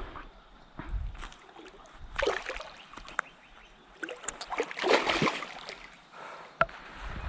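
Irregular water splashing and sloshing at the river's edge, with a few sharp knocks in between; the loudest splashes come about two and five seconds in.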